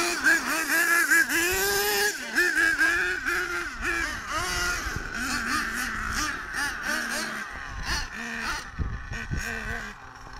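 Small nitro engines of RC monster trucks revving, a high buzzing note that repeatedly rises and falls as the throttle is worked. It grows fainter near the end.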